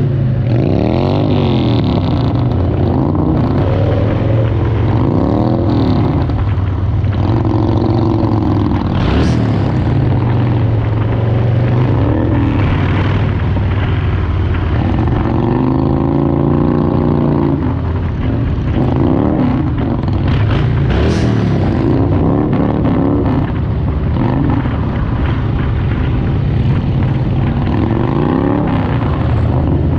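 Motorcycle engines running on the move, the bike carrying the microphone loudest, with a steady low drone and revs that rise and fall in pitch again and again over road and wind noise.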